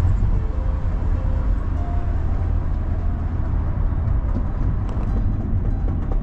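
Steady low rumble of a car's road and engine noise heard from inside the moving car's cabin.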